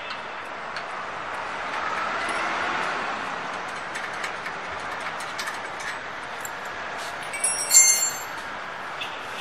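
Small metallic clicks and knocks from steel machine parts being fitted together by hand, with one ringing metal clang a little before eight seconds in. A steady wash of background noise underneath swells briefly about two seconds in.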